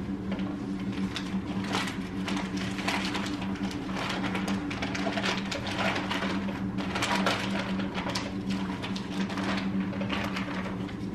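Rustling, crinkling and light knocks of small gifts and their packaging being handled and stuffed into a Christmas stocking, irregular throughout, over a steady low hum.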